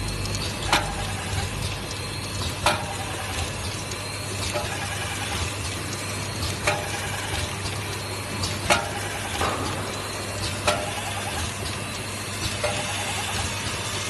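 Automatic vial filling, stoppering and capping machine running: a steady motor hum and hiss, with a sharp clack about every two seconds, each followed by a brief rapid rattle, as the vial turntable steps round in its working cycle.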